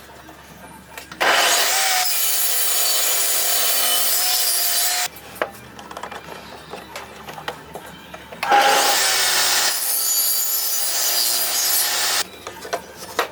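Power tool cutting wood in two steady passes of about four seconds each, each starting and stopping abruptly, with light handling knocks in the pause between them.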